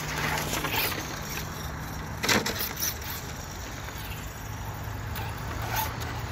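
Electric radio-controlled cars, a Team Associated DR10 drag car and a Traxxas Slash 2WD, running on asphalt with motor whine and tyre noise. One car passes close at the start, and there is a loud short rush about two seconds in.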